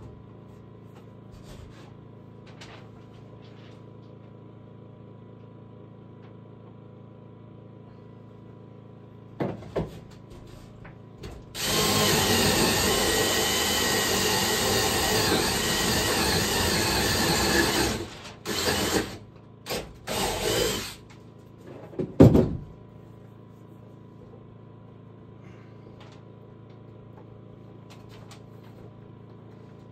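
A power drill running into wood: one long run of about six seconds, then three short bursts. A few knocks come before and after it.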